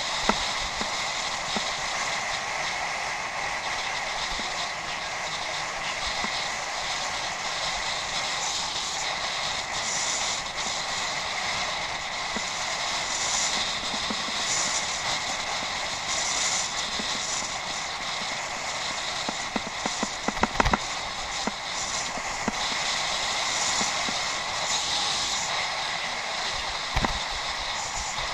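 Steady rolling noise of a bicycle being ridden, with a quick run of clicks and knocks about twenty seconds in.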